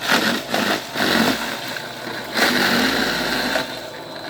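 Toro Power Shovel's electric motor and spinning rotor running under load, pushing into material; the noise surges and eases about three times.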